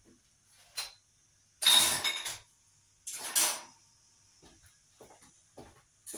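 Kitchen cookware clattering as a small stainless saucepan and a mesh strainer are fetched: a light click, then two loud rattling bursts about two and three and a half seconds in, with a few faint knocks after.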